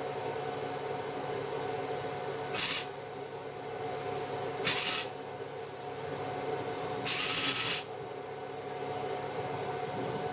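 Three short bursts of crackling hiss from an electric welder laying tack welds, the longest near the end, over the welder's steady electrical hum.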